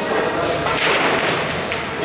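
Steady room noise of a busy pool hall, with a brief hiss rising and fading about a second in.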